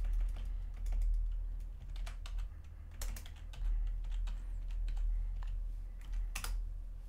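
Typing on a computer keyboard: irregular key clicks, a few of them louder, over a steady low hum.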